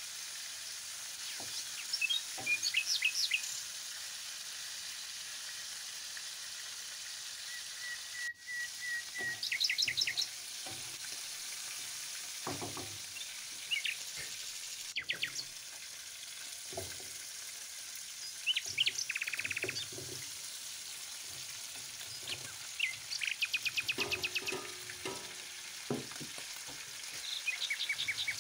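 Pieces of lamb frying in oil in a pan, a steady sizzle, with a wooden spatula knocking and scraping against the pan now and then. Birds chirp in short rapid trills several times.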